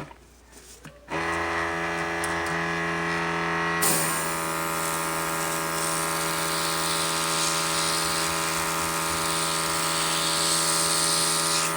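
Small airbrush compressor humming steadily, switching on about a second in. From about four seconds in the airbrush sprays white paint with a steady hiss of air, which stops just before the end.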